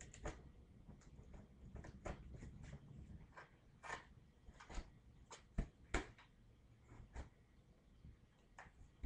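Faint, scattered clicks and knocks of hands handling a box and its packaging, with two louder knocks close together a little past the middle.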